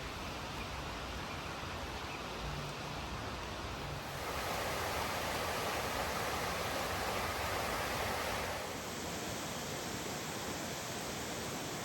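Rushing river water tumbling over waterfalls: a steady wash of noise that grows louder and fuller about four seconds in and falls back again a few seconds before the end.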